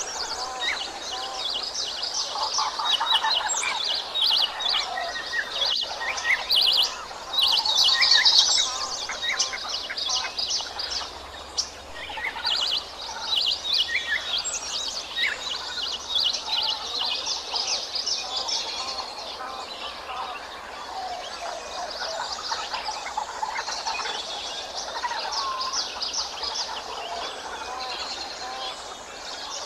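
A chorus of many birds chirping and singing at once, with overlapping high chirps and trills that carry on through and are busiest about eight seconds in.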